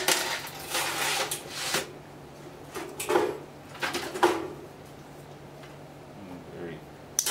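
Clatter and scraping of a sheet-metal alarm-panel cabinet being handled: its hinged front panel is laid down on the bench, then a sealed lead-acid battery is dragged out of the cabinet with a couple of hollow knocks. A low steady hum follows, and a single sharp click comes near the end.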